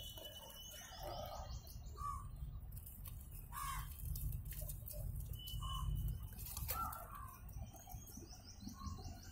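Birds chirping and calling: quick runs of high notes come twice, with short, lower calls every second or two, over a low, steady rumble.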